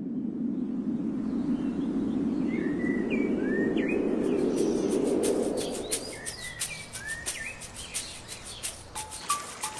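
Birds chirping in short rising and falling calls over a steady low rushing noise that fades out about halfway through. Near the end, a run of sharp clicks and short stepped notes begins.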